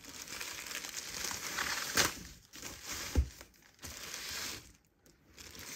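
Plastic packaging crinkling and rustling as a plastic-and-foam sleeve is pulled off a die-cutting machine, with a sharp crackle about two seconds in and a low thump about a second later.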